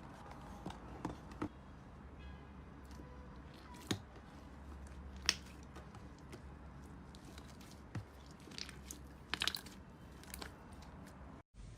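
Slime being pressed and squished by hand, giving scattered soft crackles and a few sharper clicks and snaps. The sound cuts out for an instant near the end.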